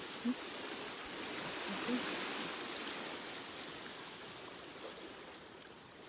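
Sea waves washing on a pebble beach: a steady rushing hiss that swells a couple of seconds in and then eases off toward the end.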